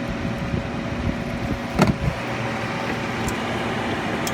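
Vintage Philco Noiseless window air conditioner running steadily, its fan blowing air over a low electrical hum. A short knock sounds about two seconds in.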